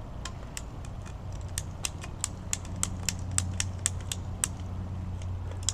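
Ratcheting PVC pipe cutter clicking as it is worked through 3/4-inch PVC pipe, a run of sharp clicks about three a second. A steady low hum runs underneath.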